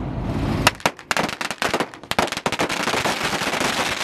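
A string of firecrackers going off in a fast, irregular crackle of sharp bangs, starting about three-quarters of a second in after a low rumble.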